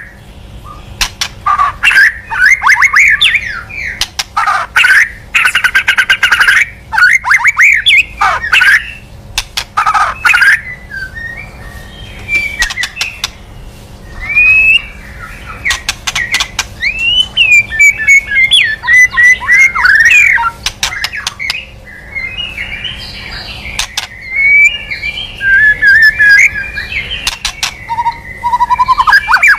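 White-rumped shama singing loud, varied phrases of rapid gliding whistles mixed with harsh, clicking notes, in bursts of a few seconds with short pauses between them: the kind of song played as a lure call for the species.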